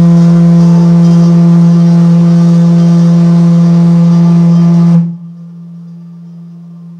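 Steady electronic drone from a saxophone effects and looping pedalboard: one held low tone with overtones, loud and unchanging. About five seconds in it drops sharply to a much quieter drone that carries on.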